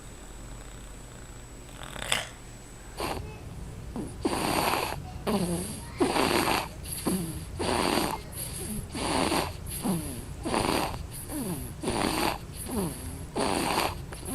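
A sleeping baby's noisy, snoring breaths, coming quickly and evenly from about four seconds in, each with a short falling squeak. A single click comes about two seconds in.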